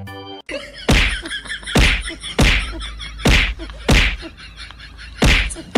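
A series of loud thwacks, about seven sharp strikes spaced unevenly half a second to a second apart, over a low steady hum.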